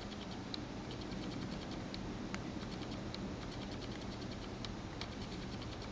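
Light, irregular clicks and ticks, several a second, over a steady low hum.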